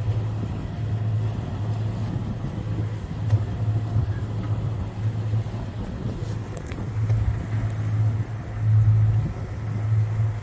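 A sailing yacht's engine running steadily while motoring, a low drone with a rushing noise of wind and water over it.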